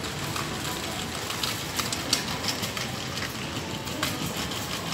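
Steady background noise of a large supermarket hall, with a few faint clicks.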